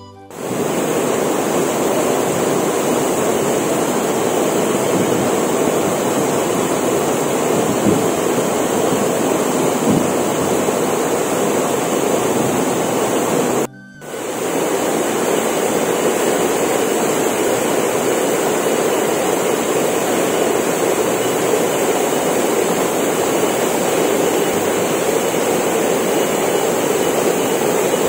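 Waterfall pouring into a rock pool: a loud, steady rush of falling and churning water. It breaks off for a moment about halfway through.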